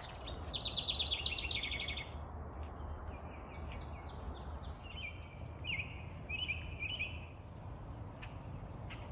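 Several songbirds singing: a fast trill in the first two seconds, then a string of short chirps and repeated little phrases, over a low steady background rumble.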